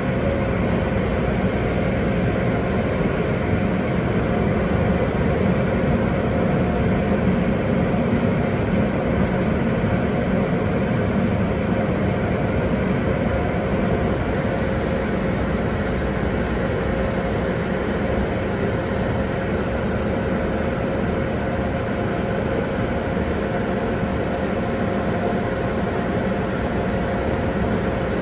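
Automatic tunnel car wash working over a car, heard from inside the car: a steady wash of water spray, cloth curtain strips and spinning brushes, over a constant machine hum.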